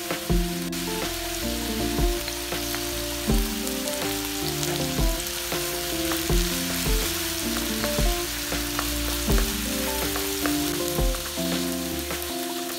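Fried rice sizzling in a hot wok while a slotted spatula stirs and tosses it, with small scrapes and taps about once a second. Soft background music with held low notes plays underneath.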